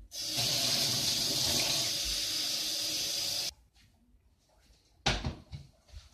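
Cold water running from a kitchen tap into a saucepan, a steady rush that cuts off abruptly after about three and a half seconds. A few short knocks follow near the end.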